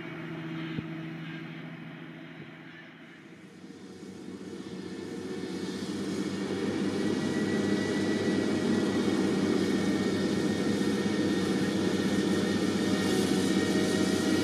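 Vredo VT3306 self-propelled slurry applicator's diesel engine running under load. It grows louder over several seconds as the machine draws near, then holds steady, with a thin high whine over the engine hum.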